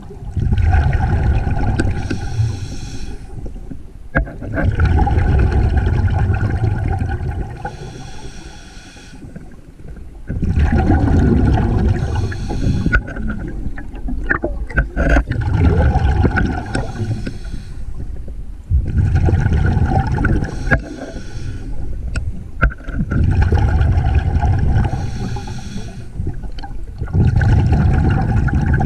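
A scuba diver's regulator breathing underwater: breath after breath of regulator hiss and rushing exhaust bubbles, repeating every four seconds or so.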